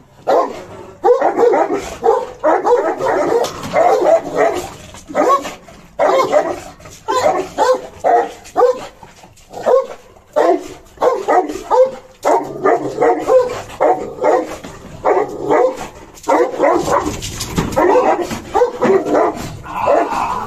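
Serbian defense dog barking at a bite sleeve, in fast runs of loud barks with short breaks, the barking of a guard dog provoked in protection work.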